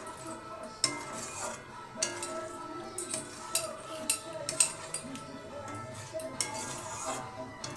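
A utensil stirring yogurt into chicken curry in a cooking pot, with irregular clinks and knocks against the pan.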